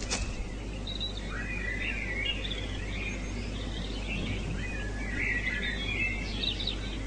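Small songbirds chirping and warbling in quick twittering phrases, starting about a second in, over a steady low background hum.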